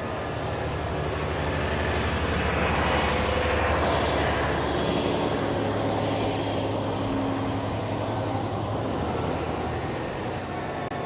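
Heavy farm machinery running steadily with a low engine hum. It grows louder over the first few seconds, with a falling whoosh as the machine passes close, then eases off a little.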